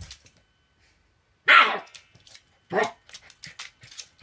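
A puppy barking twice: a loud bark about a second and a half in, then a shorter one about a second later, with a few faint clicks after it.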